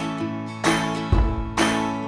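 Background music with acoustic guitar and a steady beat.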